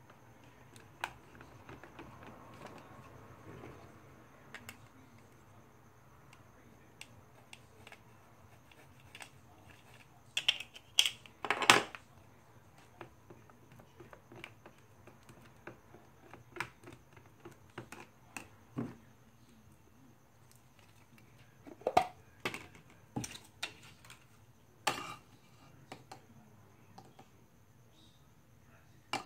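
Plastic spoon stirring in a plastic tub of glue: irregular clicks and taps of spoon on tub, with clusters of louder knocks about a third of the way in and again past two thirds.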